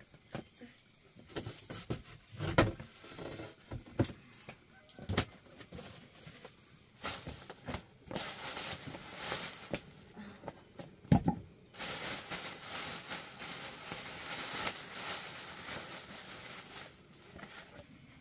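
Handling noises: a few sharp knocks, then long stretches of crinkly rustling as a plastic bag of leafy greens is handled and the greens are spread on a woven bamboo tray.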